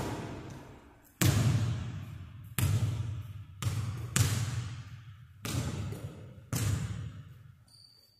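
A basketball bouncing and being dribbled on a hardwood gym floor: about seven loud bounces at uneven intervals, each echoing in the large, empty gym.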